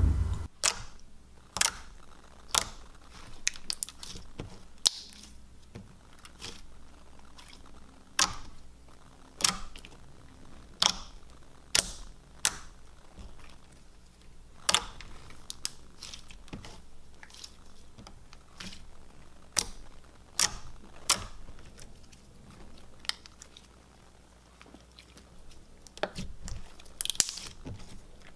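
Thick, creamy white slime being stretched, folded and squeezed by hand, giving sharp wet clicks and pops about once a second, irregularly spaced. It goes quieter for a few seconds, then a denser run of squishing clicks comes near the end.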